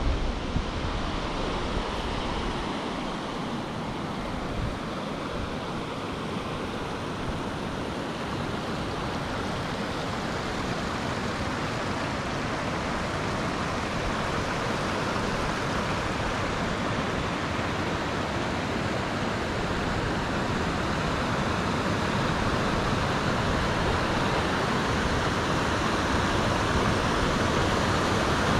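River rapids: white water rushing over rock in a steady, even rush that grows gradually louder.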